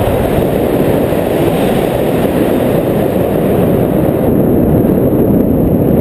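Airflow in paraglider flight buffeting the camera's microphone: a steady low rumble of wind noise.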